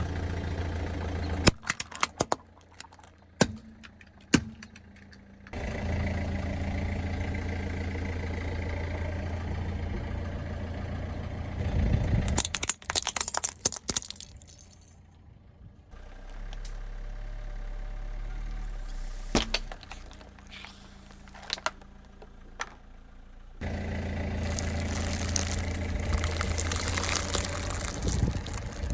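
A car's engine running at low speed, broken up several times by sharp cracks, pops and crunching as objects are crushed under the tyres.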